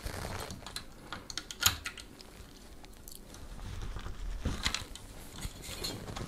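Scattered small clicks and taps of metal and plastic as a Cooler Master Hyper 212 LED tower CPU cooler is forced down onto its AM4 mounting bracket and its retaining clip is worked into place.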